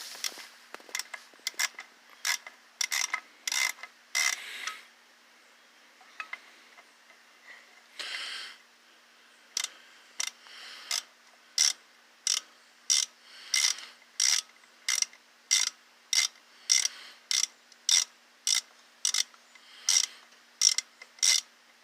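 Hand ratchet wrench clicking as it is worked back and forth to loosen engine motor-mount bolts. There is a run of clicks, a pause with a brief scrape, then steady single clicks about two a second.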